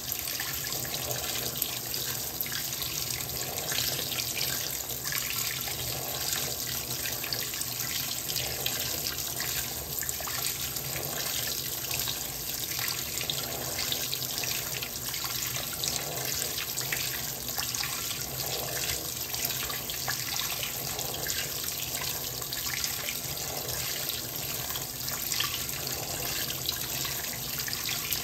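Fisher & Paykel WL8060P1 washing machine with water running steadily into the tub, a continuous rushing stream with a low hum underneath.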